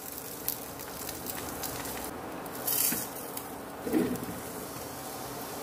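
Oiled paratha sizzling steadily on a hot iron tawa. There is a brief louder burst near the middle, and a short slap about four seconds in as the flatbread is turned over onto the pan.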